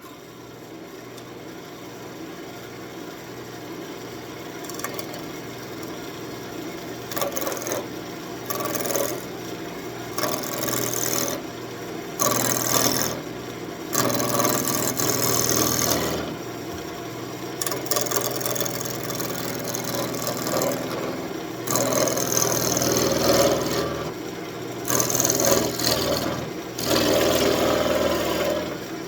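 Wood lathe spinning an elm blank, with a turning tool cutting the wood in repeated passes of a second or two each. The motor hum runs alone for the first few seconds before the cutting starts.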